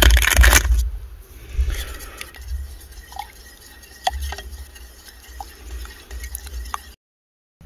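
Water dripping: a few separate small drops plinking into liquid over a low rumble, after a brief loud noise in the first second. The sound cuts off abruptly near the end.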